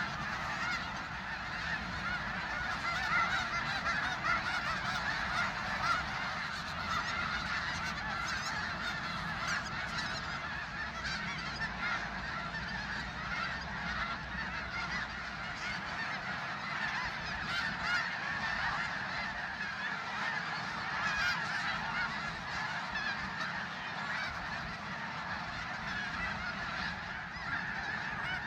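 A large flock of geese calling together: a continuous din of many overlapping honks.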